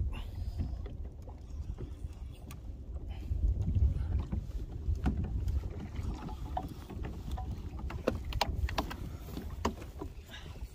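Wind rumbling on the microphone and choppy sea water slapping against a kayak's hull, with scattered light clicks and knocks, most of them in the second half.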